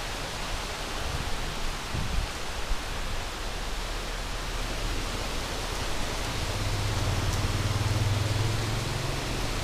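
Steady rain falling on a wet street, a continuous hiss. From about six seconds in, the low hum of a passing car's engine joins for roughly three seconds.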